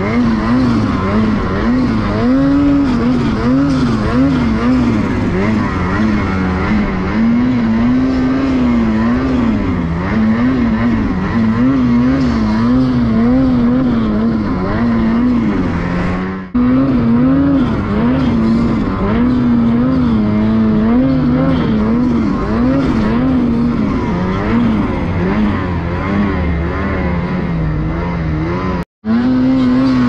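Ski-Doo turbocharged two-stroke snowmobile engine running hard under load in deep powder, its pitch rising and falling continuously as the throttle is worked. The sound cuts out briefly about halfway through and again near the end.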